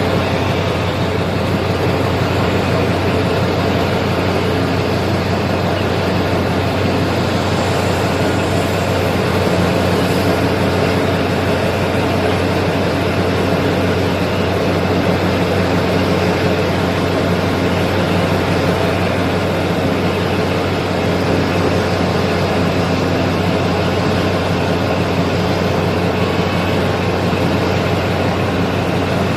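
Heavy diesel engines of mining machinery, a large excavator and dump trucks, running steadily: a constant loud, deep drone with no pauses.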